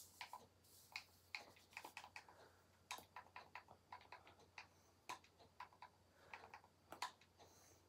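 Faint, irregular clicks of typing on a phone's keyboard.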